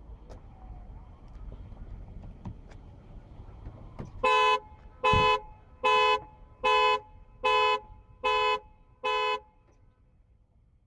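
Audi TTS Roadster's factory alarm triggered and sounding through the car's normal horn: seven short two-tone horn blasts, a little under a second apart, starting about four seconds in after a few faint clicks.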